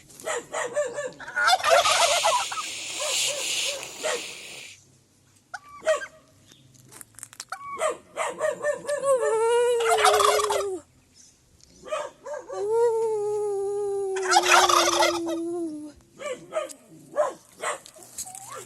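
Domestic turkeys gobbling in three loud rapid rattling bursts, the second and third each following a long, slightly falling pitched call.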